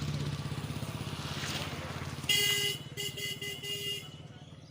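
A diesel engine running with a steady chug that fades. A little past halfway a loud vehicle horn cuts in: one longer blast, then a run of short toots.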